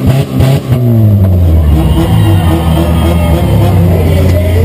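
Chevy Cavalier's engine heard from inside the stripped cabin, its revs falling away in the first second and settling to a steady idle. A few sharp knocks come through in the first second.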